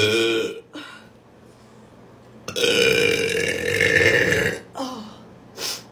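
A woman burping loudly: a short burp right at the start, then one long drawn-out burp lasting about two seconds in the middle, followed by two short fainter sounds near the end.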